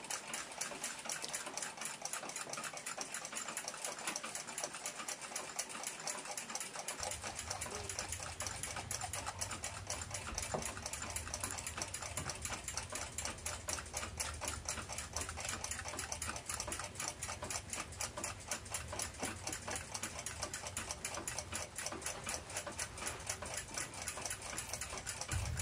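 Mechanical clocks ticking: a rapid, steady run of several ticks a second. A low hum joins about seven seconds in.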